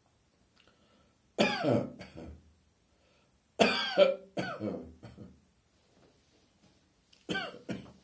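A person's morning coughing fit: three bouts of several coughs each, every bout starting suddenly and trailing off, with short quiet pauses between.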